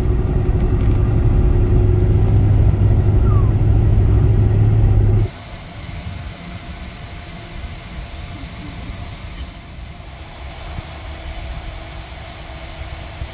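Engine and road noise inside a vehicle's cabin at highway speed, a loud steady low drone. It cuts off about five seconds in, giving way to a much quieter outdoor background hum.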